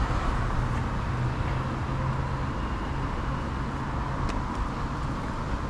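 Street traffic noise: road vehicles running past with a steady low engine hum underneath.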